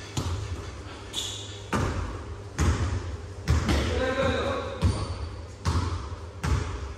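A basketball being dribbled on a hard gym floor, a bounce about once a second, each thud ringing in the hall.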